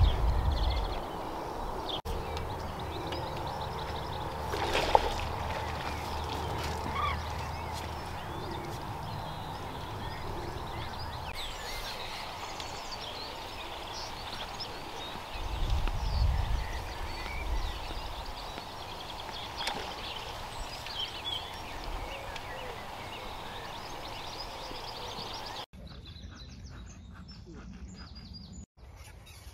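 Outdoor ambience with small birds chirping and calling throughout, and a low rumble about fifteen seconds in. Near the end the background drops away suddenly and becomes quieter.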